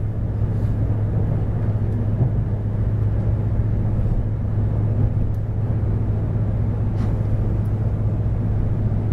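Steady low rumble and hum inside the passenger cabin of a Taiwan High Speed Rail 700T train running along the line.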